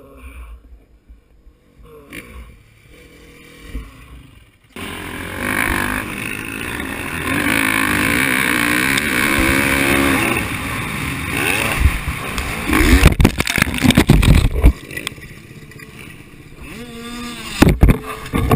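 Dirt bike engine revving and pulling hard, heard from the rider's helmet camera with wind noise. It starts abruptly a few seconds in, and its pitch rises and falls with the throttle. Heavy thumps and knocks follow, the loudest near the end as the bike and rider crash into the dirt.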